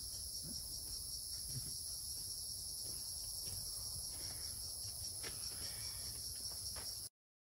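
A steady, shrill chorus of forest insects droning without a break, which cuts off abruptly near the end.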